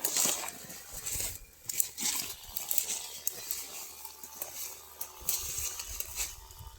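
Irregular rustling and crinkling with scattered small clicks, coming and going in uneven bursts, fading in the last second.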